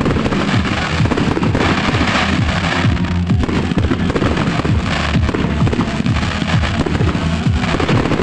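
Fireworks display set to music: many aerial shells bursting and crackling in quick succession over a music soundtrack.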